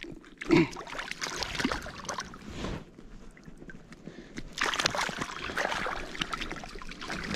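Shallow water splashing and sloshing at the water's edge as a freshly landed trout is unhooked and handled, in irregular bursts that grow louder in the second half.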